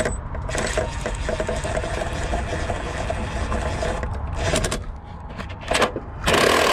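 Handling noise of hands working on parts under a truck: scraping and small clicks over a steady low rumble, then several short, loud rustling bursts near the end.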